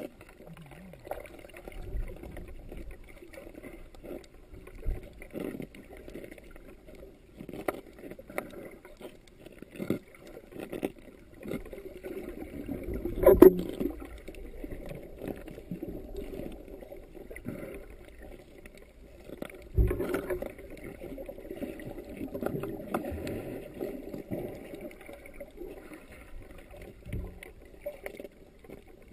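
Muffled underwater sound heard through a GoPro's sealed dive housing: a low, even wash of water with scattered knocks, the loudest about 13 seconds in and another near 20 seconds.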